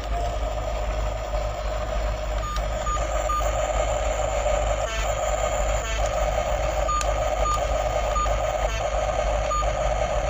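Toy excavator's electronic sound effects: a raspy, engine-like buzz broken by short gaps, with short high beeps like a reversing alarm starting about two and a half seconds in and repeating several times.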